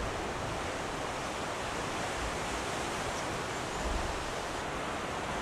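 Steady, even rush of ocean surf on the shore.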